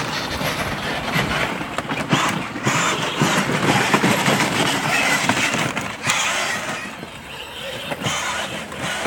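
Battery-powered ride-on toy motorcycle and ATV driving over grass and dry leaves: motors and plastic wheels make an uneven, crackly noise. It eases for a moment about seven seconds in.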